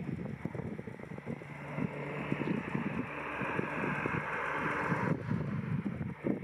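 A De Havilland Dash 8 Q300's two Pratt & Whitney Canada PW123 turboprops at takeoff power as it lifts off and climbs away: a steady propeller drone under a rushing turbine noise. Wind buffets the microphone.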